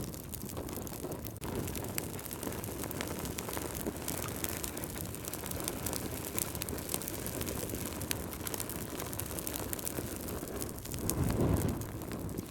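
Wood logs burning in a fireplace: a steady low rush of flames with frequent sharp crackles and pops. The low rush swells louder for a moment about eleven seconds in.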